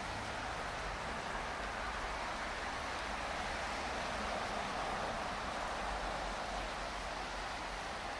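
Steady rush of the Little Pigeon River running over its rocky bed.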